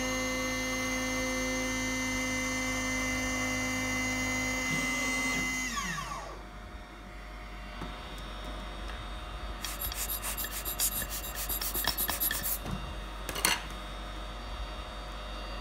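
Small CNC milling spindle whining steadily, then spinning down with a falling pitch about six seconds in. Later come a few seconds of rapid scraping clicks and one sharp click.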